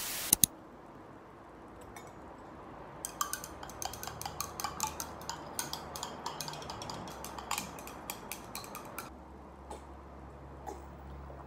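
Light clinks of a spoon and tableware at a breakfast table: a quick, irregular run of small clicks lasting several seconds, then a faint low hum near the end.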